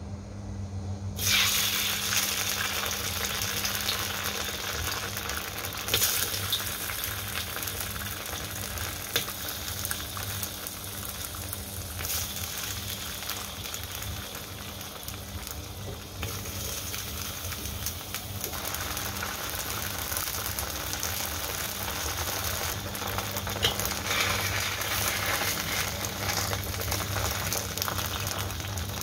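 Slices of Chinese New Year cake (nian gao) frying in hot oil in a wok: a crackling sizzle that starts suddenly about a second in as the cake goes into the oil and grows louder again in the last third, over a steady low hum.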